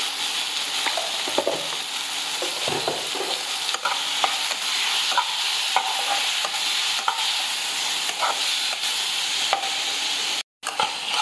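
Tomato pieces sizzling in hot oil in a metal kadhai while a metal spatula stirs them, scraping and tapping the pan in short irregular strokes over a steady sizzle. The tomatoes are being fried down until soft. The sound drops out for a moment near the end.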